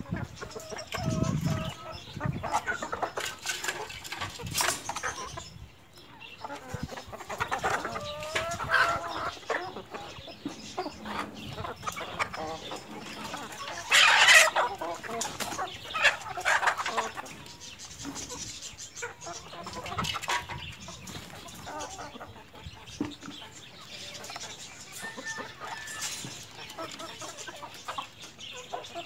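A flock of Aseel chickens clucking and calling, with short pitched calls coming in bunches. A brief loud squawk-like burst comes about halfway through.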